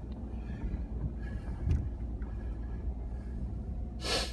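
Low, steady rumble of a vehicle driving slowly while pulling a trailer, heard from inside the cab. A short hiss comes near the end.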